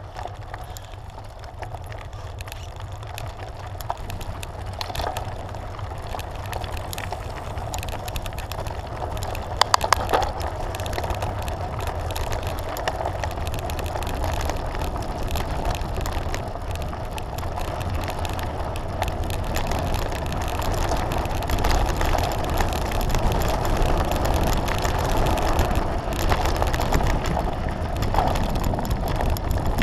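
Mountain bike rolling fast down a gravel track: tyres crunching over loose stones and the bike rattling, under steady wind rumble on the microphone. A few sharp knocks come about ten seconds in, and the noise grows louder as the bike speeds up.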